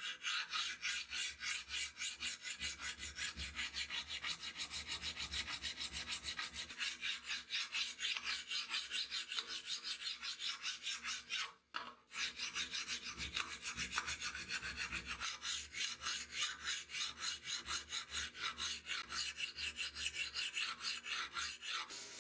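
Flat hand file rasping along the edge of a spring-steel blade clamped in a vise, in quick even strokes of about four a second, with a short break about halfway through.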